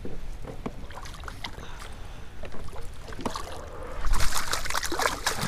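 Scattered light clicks and knocks of tackle handling, then about four seconds in a burst of water splashing as a hooked flounder thrashes at the surface and a landing net is scooped through the water beside the kayak.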